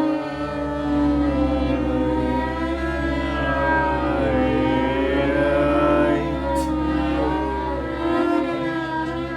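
Experimental music: sustained bowed-string tones sliding slowly up and down in pitch and crossing one another, over a steady low drone, with a single short click about two-thirds through.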